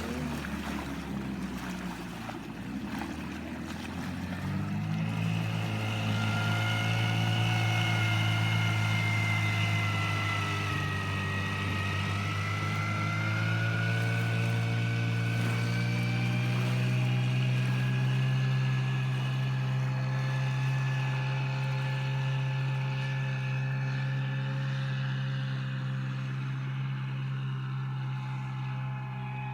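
Veterok-8 two-stroke outboard motor running under way, getting louder and higher about four to five seconds in as it is opened up, then holding a steady drone.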